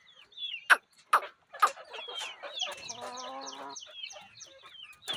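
Chickens calling: many short high peeps sliding downward in pitch, a few sharp loud clucks, and a longer held call about three seconds in.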